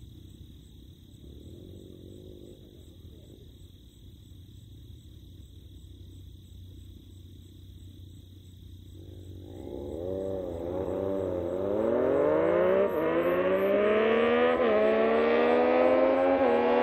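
Yamaha FZ-09 inline-three motorcycles with M4 slip-on exhausts accelerating hard on approach, getting louder from about halfway in, their pitch climbing through each gear and dropping suddenly at each upshift. Before that, only a faint low hum.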